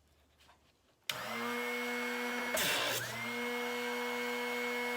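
Drill Doctor drill-bit sharpener switched on about a second in, its small electric motor running with a steady whine. About a second and a half later a brief rough grinding as a bit is pushed against the grinding wheel in the side port, the motor dipping in pitch under the load before settling back.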